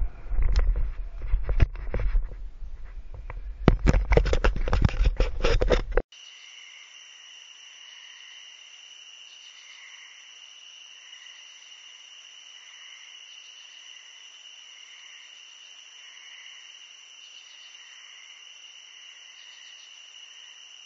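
About six seconds of low wind rumble buffeting the camera microphone, peppered with sharp knocks and clatter. It cuts abruptly to a steady night-time insect chorus: a constant high trill with a softer chirp pulsing about once a second.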